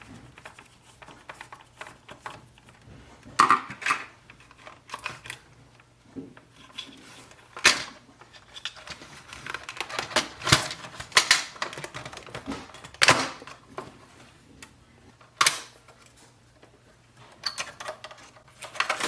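Irregular clicks, taps and knocks of plastic and metal parts of an Epson WorkForce WF-2860 inkjet printer being handled with a screwdriver while it is taken apart, over a faint steady low hum.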